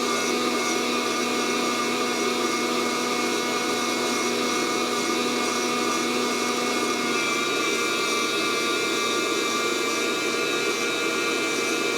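Fresh Roast SR 800 hot-air coffee roaster running steadily, its fan blowing heated air up through the tumbling beans. Its hum changes slightly in pitch about seven seconds in. There is no crackling: the beans have not yet reached first crack.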